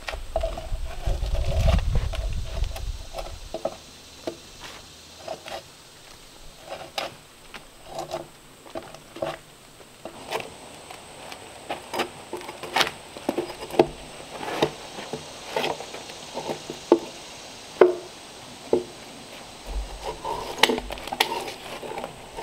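Drawknife peeling bark off a green log: short, sharp scraping strokes, roughly one or two a second. A low rumble underlies the first few seconds.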